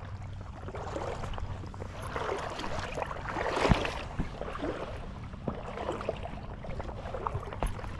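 Legs in waders wading through shallow flats water: an uneven sloshing and swishing, with one louder splash about halfway through.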